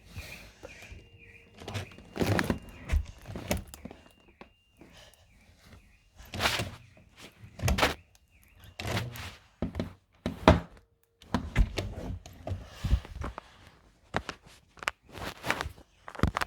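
An irregular series of thumps and knocks, about a dozen, some loud. A faint steady high tone sounds underneath during the first half and fades out about eight seconds in.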